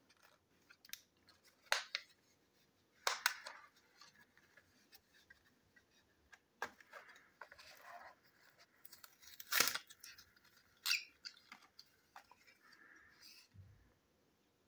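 Small electric motor's packaging being opened by hand: irregular crinkles, clicks and tearing of plastic and cardboard, with one louder snap about two thirds of the way through.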